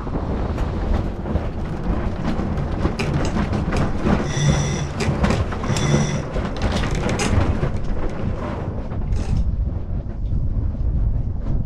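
Wind buffeting the microphone on a sailboat under way in a fresh breeze, with clicking and rattling from the boat's gear. Two short high beeps sound about four and six seconds in.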